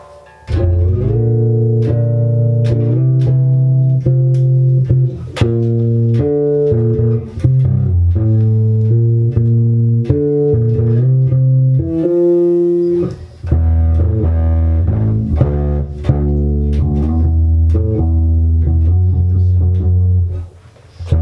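Electric bass guitar played through a Trace Elliot Elf micro bass head: a line of held notes changing about once a second, with a higher note about twelve seconds in and two brief breaks.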